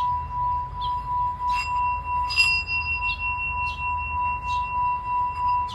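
Metal singing bowl being sung with a wooden mallet rubbed around its rim, holding a steady ringing tone that pulses in loudness. A higher overtone swells in about a second and a half in, with a brief clink of the mallet against the rim about two and a half seconds in.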